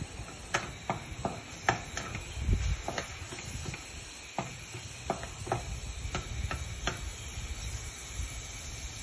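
Wooden spatula stirring ginger frying in oil in a non-stick pan, knocking and scraping against the pan in irregular clicks about once or twice a second, over a faint steady sizzle.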